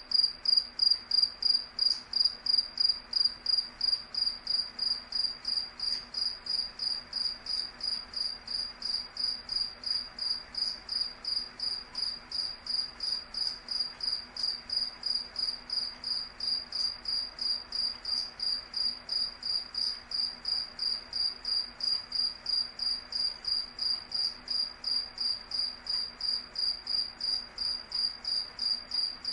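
A cricket chirping steadily on one high pitch, about three even chirps a second without a break.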